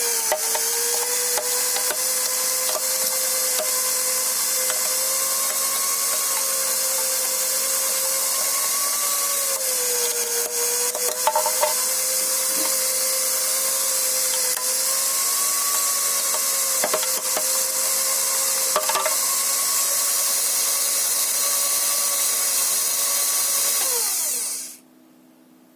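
The electric motor of a piston coal feeder for an automatic coal burner runs steadily with a whine that wavers slightly in pitch. Scattered cracks come as the piston splits coal. Near the end the whine falls away and the motor stops.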